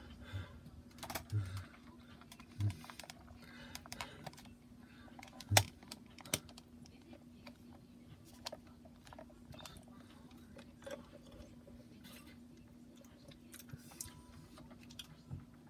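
Scattered faint clicks and taps over a steady low hum, with one sharper tap about five and a half seconds in.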